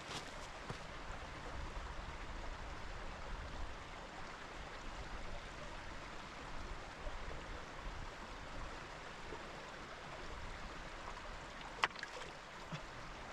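Mountain stream running steadily, with a single sharp click near the end.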